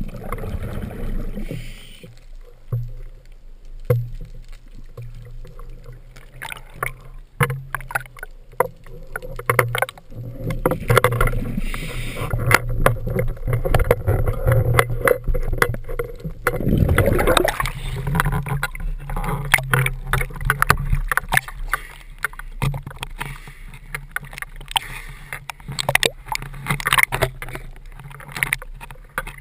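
Underwater sound through a camera housing: a scuba diver's exhaled bubbles rushing past in bursts, with many clicks and knocks from handling the speargun the camera is mounted on, over a low steady hum.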